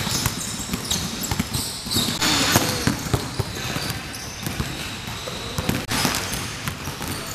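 Several basketballs being dribbled and bounced on a gym floor, an uneven run of knocks in a large sports hall.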